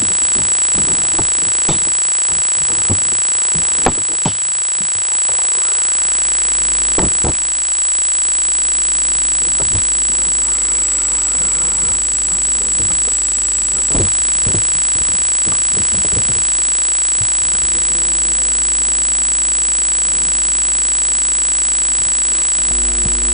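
Background electronic music with synthesizer sounds.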